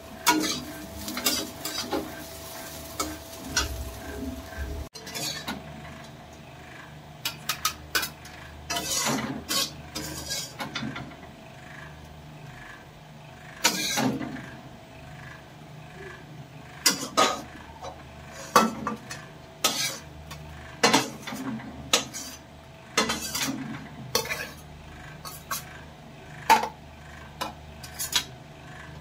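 A metal cooking utensil clinking and scraping against a metal pan in sharp, irregular strokes while food is stirred, with a light sizzle of frying underneath.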